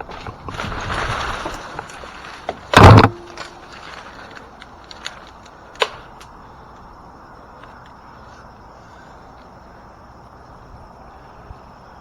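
A rushing, rustling noise of branches and leaves, then one heavy crash about three seconds in: a large limb of a hollow, lightning-damaged ash tree breaking away and coming down. A smaller knock follows a few seconds later.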